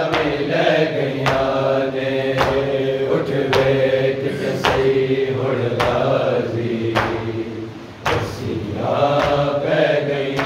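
A crowd of men chanting a Muharram lament (soz) together, with the slap of chest-beating (matam) landing in unison about once a second. The singing breaks off briefly about eight seconds in, then resumes.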